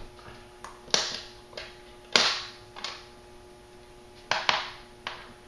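A series of about six sharp clicks or snaps, irregularly spaced. The loudest comes about two seconds in, and two come close together a little past four seconds. A faint steady hum runs underneath.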